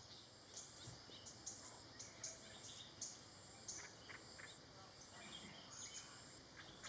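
Faint forest ambience: a steady high insect buzz with scattered short, high-pitched bird chirps.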